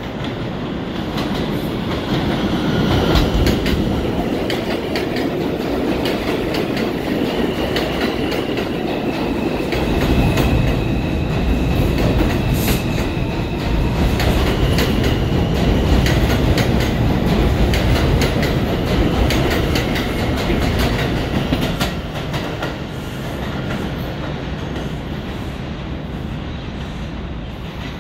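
R142 subway train running through an elevated station without stopping: a loud rumble with rapid clicking of wheels over the rail joints and a thin high whine on top. It builds as the train approaches, peaks as the cars pass alongside, and fades as it moves away near the end.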